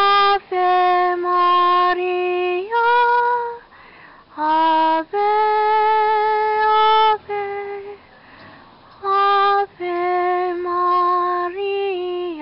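A woman singing a slow devotional song to the Virgin Mary, solo and unaccompanied, in long held notes with pauses for breath between phrases.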